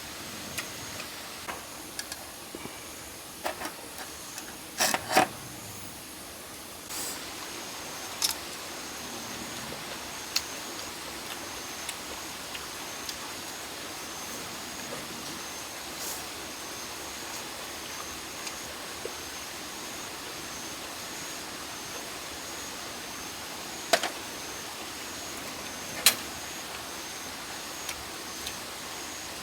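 Outdoor ambience: a steady hiss with a thin, continuous high-pitched tone. Scattered sharp clicks and knocks break through it, loudest about five seconds in and twice near the end.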